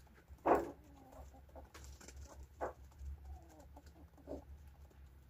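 Racing pigeons in a loft cooing faintly, with three short sharp thumps; the loudest comes about half a second in.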